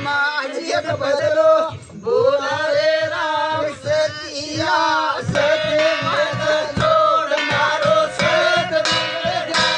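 Group folk singing led by men's voices, chant-like, over a steady beat of steel plates struck by hand; the beat of the plates grows stronger about halfway through.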